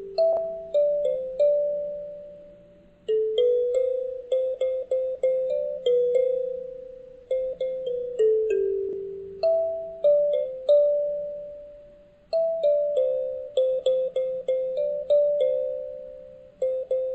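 Instrumental music with no singing: a slow single-note melody on a piano-like keyboard instrument, each note struck and left to ring and fade, with quick runs of repeated notes between longer held ones.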